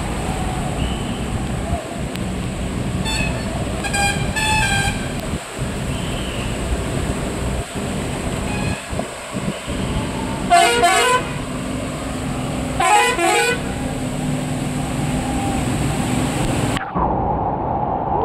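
Vehicle horns blaring over a steady rumbling background of engines and rushing floodwater: a few short toots about four seconds in, then two loud, warbling horn blasts, one near the middle and another two seconds later.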